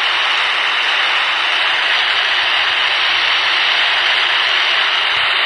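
Steady, loud FM static hiss from a Baofeng UV-5R handheld radio's speaker with its squelch open: no signal on the ISS downlink channel between the astronaut's replies.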